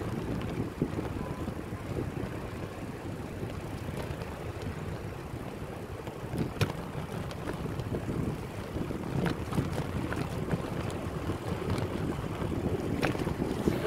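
Wind buffeting a phone microphone with a low rolling rumble from a bicycle coasting downhill on a paved path, broken by a few sharp clicks.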